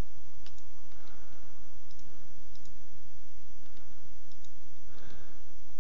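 Computer mouse clicking, several separate clicks a second or so apart, over a steady low hum and a thin high whine.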